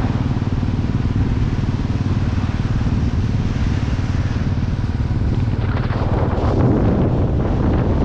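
Motorcycle engine running steadily at riding speed, with wind rushing over the microphone, the wind growing stronger about six seconds in.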